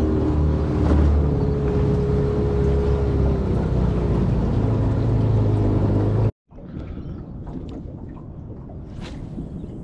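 Outboard motor of a small aluminium boat running steadily while underway, a low hum with water noise. About six seconds in it cuts off suddenly to a much quieter hiss with a few faint ticks.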